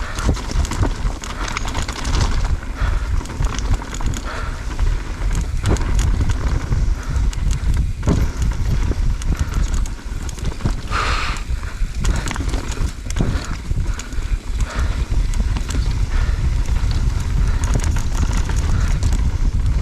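Mountain bike riding over a rocky trail: continuous rattling and clattering of the bike and tyres knocking over stones, over a steady low rumble of wind on the chin-mounted action camera's microphone, with a brief louder hiss near the middle.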